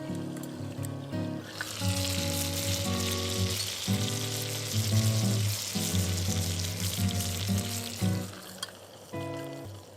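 Imagawayaki batter sizzling in a hot sandwich maker, starting about a second and a half in and dying away near the end, over background acoustic guitar music.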